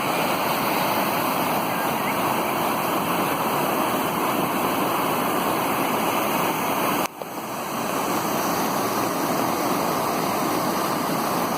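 Waterfall rushing with a steady, dense roar of falling water. The roar cuts out for an instant about seven seconds in, then comes back at full level.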